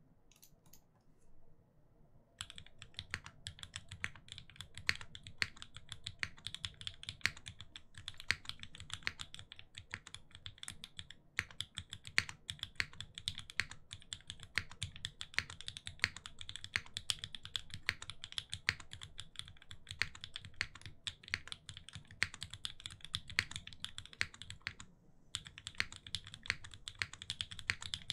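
Fast continuous typing on a Singa Unikorn mechanical keyboard with lubed and filmed linear Banana Split switches, an aluminium plate, a gummy O-ring mount and GMK keycaps: a dense stream of key clacks. It starts after a couple of scattered keystrokes about two seconds in and pauses briefly near the end.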